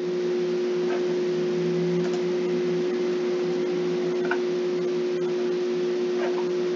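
Steady electrical hum with one strong constant tone, under a faint hiss, with a few faint ticks.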